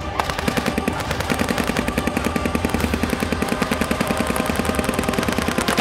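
Airsoft gun firing one long full-automatic burst: a fast, even stream of sharp shots that starts just after the beginning, over a steady low drone.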